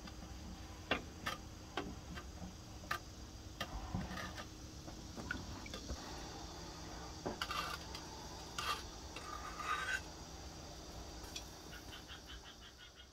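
A hot forged steel knife blade swirled in tongs in a quench barrel and then lifted out, the liquid sloshing and dripping with scattered light clicks. The busiest splashing comes about two thirds of the way through, as the blade comes out.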